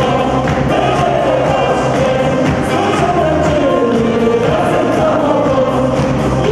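Live dance band playing a song: a sung melody over a steady bass line and drum beat.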